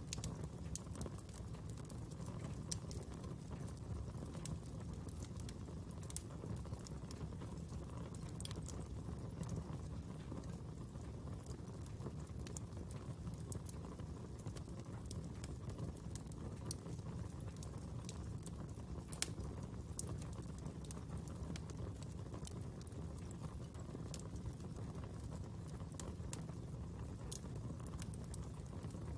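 Wood fire burning: a steady low rumble with scattered sharp crackles and pops at irregular intervals.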